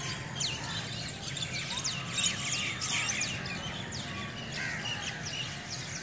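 A dense chorus of many birds chirping together in the trees at sunset, a thick stream of short falling chirps overlapping one another: the evening roosting chorus as birds settle into the trees for the night.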